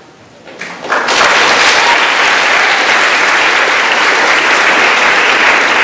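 A crowd applauding: a few claps, then full applause from about a second in that holds steady and loud.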